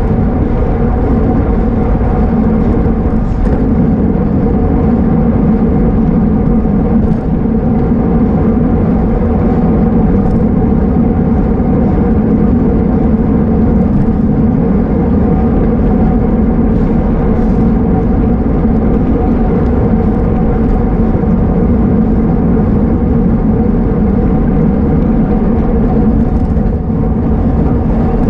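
Wind rushing over a road cyclist's camera microphone at race speed: a loud, steady roar with a few faint steady tones running through it.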